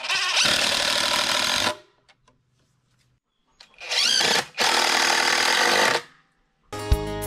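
Cordless driver sinking 3-inch deck screws into 2x4 lumber in three runs of one to two seconds each, the second starting with a rising whine as the motor spins up. Acoustic guitar music comes in near the end.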